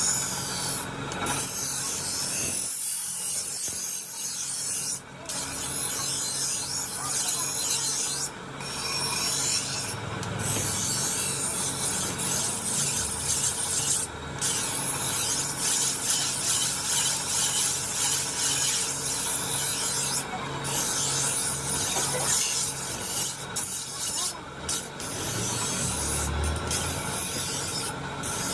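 Steel knife blade being scraped against an abrasive in quick repeated strokes during restoration. The scraping runs continuously, with a handful of very brief pauses.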